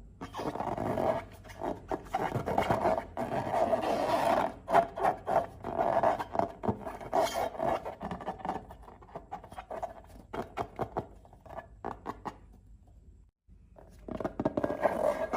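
Crackly rubbing and scraping from slime and rubber balloons being handled, full of small clicks, stopping briefly near the end.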